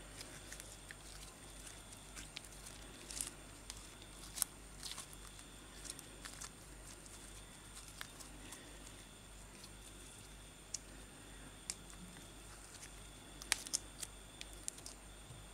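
Homemade liquid-detergent slime being squeezed and stretched by hand: faint, irregular sticky clicks and pops.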